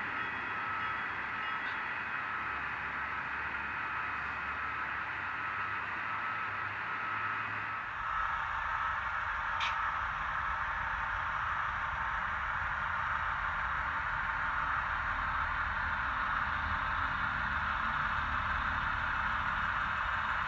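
HO-scale model diesel locomotive running slowly on the layout: a steady, hiss-like drone with faint thin whining tones, from the model's sound decoder and drive mixed with recording hiss. The background changes abruptly about eight seconds in.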